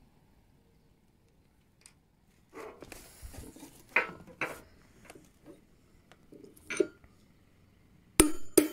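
Metallic clinks and knocks as a bolt is pushed through the bolt holes of a timber plate against a steel beam, to mark the hole positions on the steel. The clinks are scattered from a few seconds in, with a louder cluster of clanks near the end.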